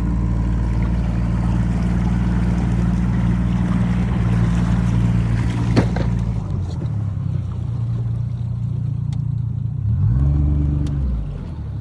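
A motor engine runs steadily at a low pitch, which sweeps up and back down about ten seconds in.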